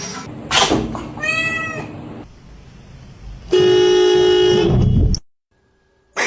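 A house cat meows once, a drawn-out call that rises and falls in pitch. A little later a loud, flat, steady tone lasts just over a second, and then the sound cuts off suddenly.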